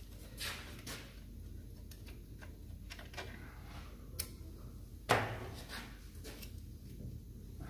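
Scattered metal clicks and light knocks from handling parts at a Range Rover Classic's front brake caliper and hub, with one louder clunk about five seconds in, over a low steady hum.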